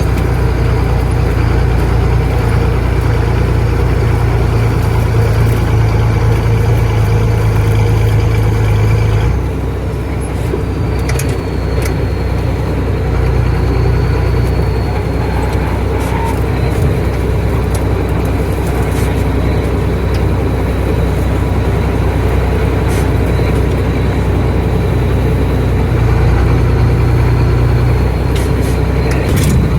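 Farm tractor's diesel engine running steadily under load. Its note drops a third of the way in and picks up again near the end.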